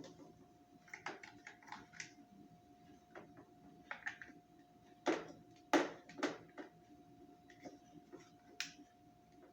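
Irregular hard clicks and knocks, a quick cluster about a second in and the loudest a little past halfway, from parts of a Kärcher pressure washer being handled and fitted together. A faint steady hum runs underneath.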